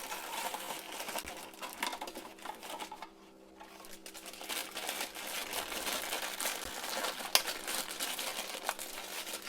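Crinkly packaging of a My Little Pony mystery mini figure being opened and crumpled by hand: a run of crackles that eases off briefly about three seconds in, with a sharper click near the end.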